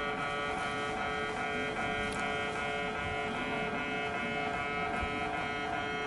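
Electronic warning buzzer of a Japanese railway level crossing, sounding a steady, buzzy alarm tone, a drawn-out 'beee, beee' rather than the clanging 'kan-kan' bell most crossings use.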